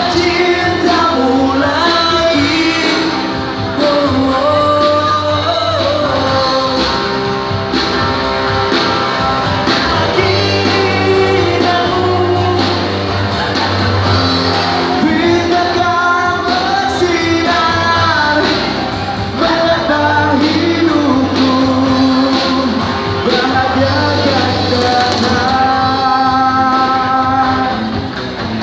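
Live band playing a rock-flavoured pop song: a lead singer over electric guitar, bass and drum kit, amplified in a large hall.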